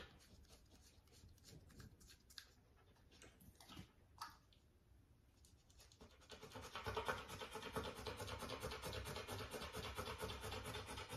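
Rottweiler puppy panting quickly and steadily, starting about six seconds in. Before that there are only a few faint clicks.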